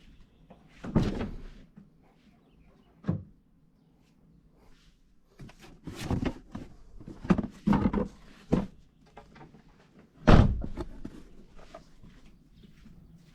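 Irregular thuds and knocks of car parts and tools being handled: a few single knocks, then a cluster of several, with the loudest thud about ten seconds in.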